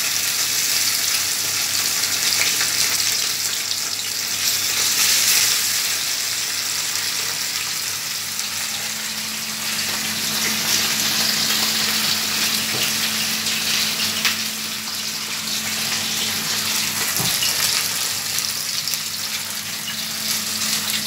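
Two whole marinated fish shallow-frying in hot oil in a stainless steel pan, sizzling steadily with fine crackles. A low steady hum comes in about eight seconds in.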